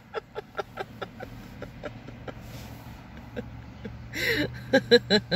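A woman laughing: a run of short, evenly paced laugh pulses that trails off, then a gasping breath about four seconds in and another burst of laughter near the end.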